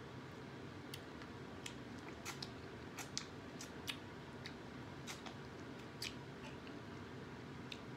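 Biting and chewing corn on the cob close to the microphone: a string of sharp, irregular crunchy clicks as the kernels are bitten off the cob.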